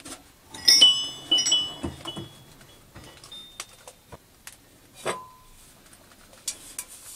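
Lubricant cans and bottles clinking against each other as they are handled and set down, a quick cluster of ringing clinks in the first couple of seconds and a single ringing knock about five seconds in.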